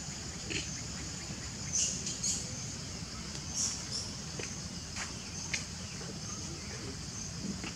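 Steady high-pitched insect drone, with a few short high chirps around two and four seconds in and a couple of faint clicks a little later.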